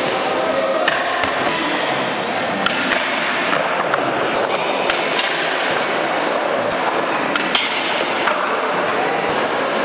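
Skateboard wheels rolling on concrete, with sharp clacks at irregular moments as boards pop, land and strike ledges and metal rails.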